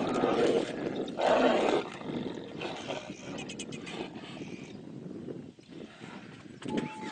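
Tigers roaring as they fight, with two loud roars in the first two seconds and quieter sound after.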